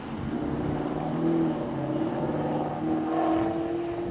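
Diesel locomotive's air horn sounding a held chord of several notes, swelling and easing a few times, then cutting off abruptly at the end.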